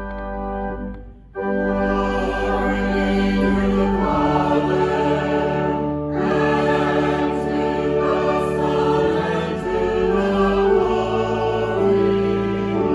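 A held organ chord breaks off about a second in, then a choir starts singing with organ accompaniment.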